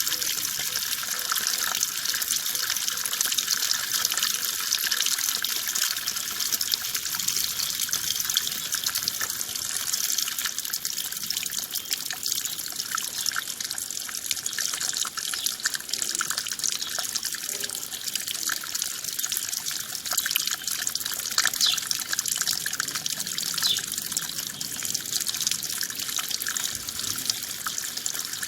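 Running water flowing and splashing steadily, a fine trickling hiss with no change in level.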